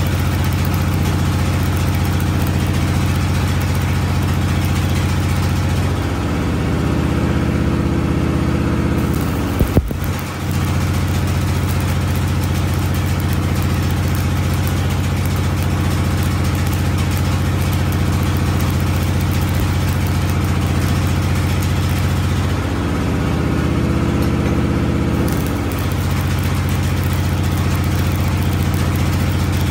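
Stick arc welding on a truck drive shaft: the arc crackles and hisses steadily over a constant low machine hum. Twice the hiss thins for a few seconds, and a single sharp click comes about ten seconds in.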